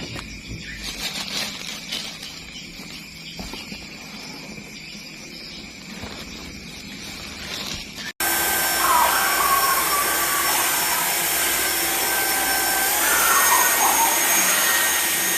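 Midea cordless stick vacuum running loudly with a steady motor whine that steps up in pitch partway through, after several seconds of quieter clicks and knocks.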